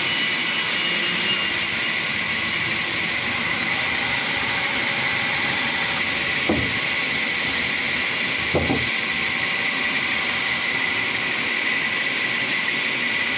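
Sawmill machinery running steadily, a loud high-pitched whine over a hiss, with two brief knocks about six and a half and eight and a half seconds in.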